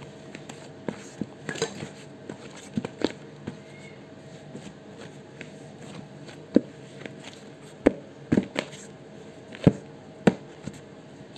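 Pandesal dough being kneaded by hand in a plastic basin: irregular soft thumps and slaps as the dough is pushed and turned against the bowl, with a few sharper knocks in the second half.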